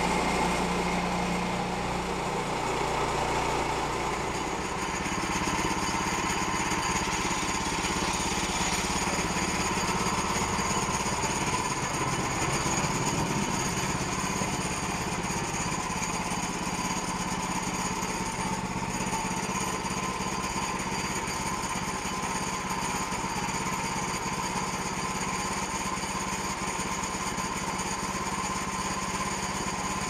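Gasoline engine of a Woodland Mills portable bandsaw mill running steadily with the band blade sawing through a log, sawdust blowing out of the cut. The engine's note changes a few seconds in and again about halfway through.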